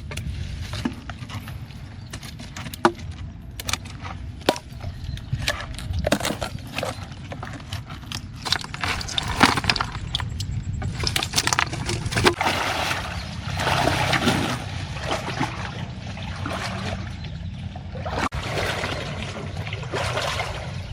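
Water splashing and sloshing, with scattered knocks and clicks throughout and louder splashing in the middle.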